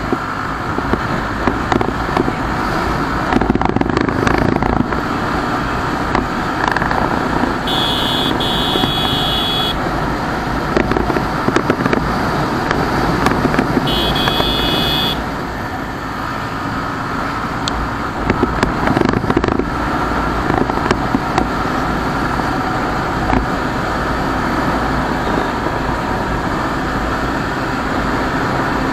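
Wind rushing and buffeting over the camera microphone, with the Bajaj Pulsar's single-cylinder engine running underneath as the motorcycle cruises and gathers speed to about 85 km/h. Twice a short, steady high tone sounds for about a second.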